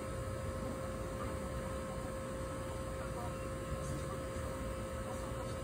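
A steady hum holding one constant tone over an even low rumble, with no change and no distinct knocks.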